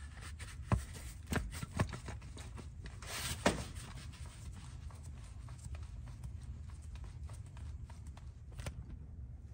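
Hand pump on a bottle of gear oil being worked to fill a rear differential through a hose: a few sharp clicks and knocks in the first few seconds, then faint scattered ticking, over a low steady rumble.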